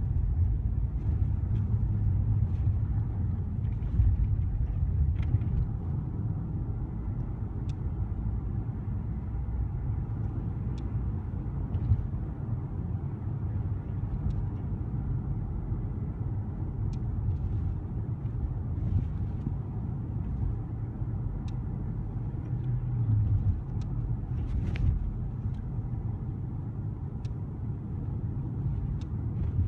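Car driving on a paved road, heard from inside the car: a steady low rumble of engine and tyre noise that swells briefly a few times, with occasional faint light clicks.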